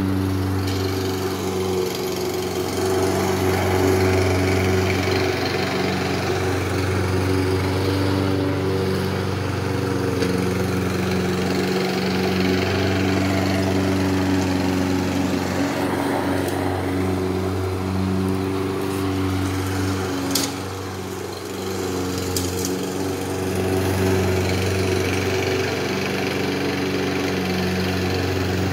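Craftsman walk-behind gas lawn mower engine running steadily while cutting grass. About twenty seconds in there is a sharp click, and the engine sound briefly drops.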